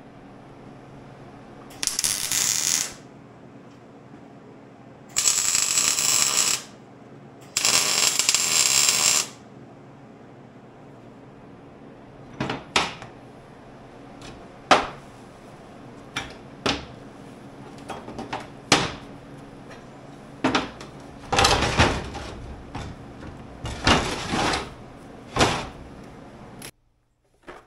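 Three short welding tacks, each a second or so of loud crackling hiss. Then a run of sharp metallic clinks and clanks as steel pieces are handled and set down on a diamond-plate steel table.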